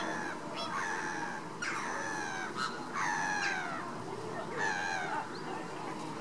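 A flock of Caribbean flamingos calling: about five short calls, each falling in pitch, some overlapping, from several birds at once.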